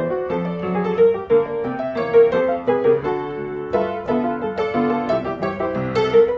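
Background piano music playing steadily, a gentle run of notes.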